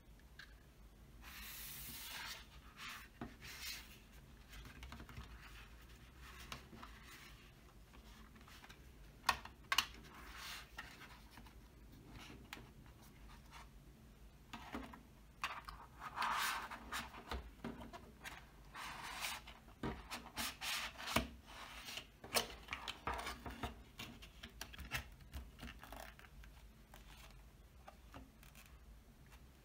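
Paper and cardboard being handled: a DVD set's booklet and card case rubbing and sliding under the hands, with scattered light taps and clicks.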